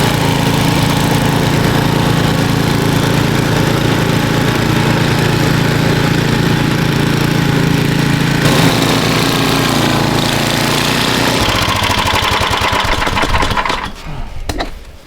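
A petrol engine running steadily and loud, with a change in its note about eight seconds in and again about eleven seconds in, then falling away near the end.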